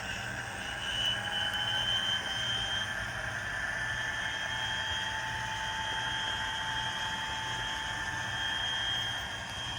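Sound decoder of a Walthers model EMD F40PH diesel locomotive, playing a running diesel prime mover through its small speaker: a steady low throb with a constant high-pitched whine over it.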